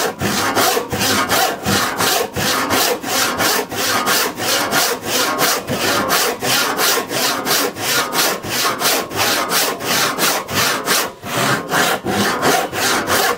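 Hand crosscut saw cutting across the end of a thick wooden countertop board, trimming it to length. The strokes go back and forth in a steady, even rhythm of about four a second.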